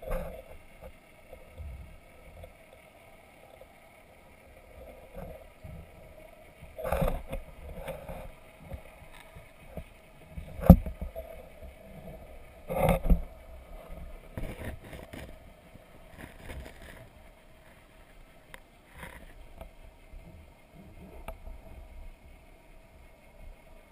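A steady faint hum, heard muffled through an underwater camera, broken by several dull knocks: a pair about seven seconds in, the loudest about eleven seconds in, another about a second and a half later, then smaller ones. The knocks are the camera bumping and scraping along the sunken boat's hull.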